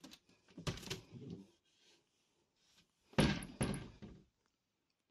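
Lightweight washroom door of a motorhome being opened, with a knock and rattle about half a second in and a louder knock and rattle, with a short squeak, about three seconds in.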